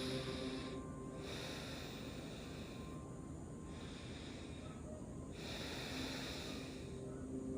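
Slow, soft breathing of a sleeper: about four breaths, each a second or two long with short pauses between, and a faint steady drone underneath.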